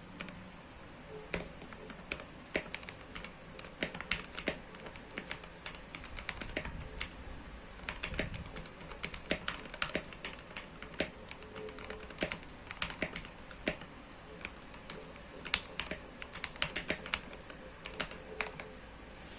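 Typing on a mechanical keyboard with Gateron Yellow linear switches, an acrylic plate and case, and OEM-profile keycaps. The keystrokes come unevenly, in quick runs with short pauses between.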